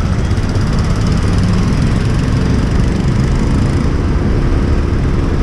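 A motorbike's engine running steadily at low speed, heard from the rider's seat.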